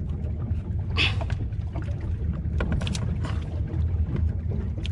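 Scissors snipping a few times, about a second in and again around three seconds, cutting off a venomous fish's tail, over a steady low rumble.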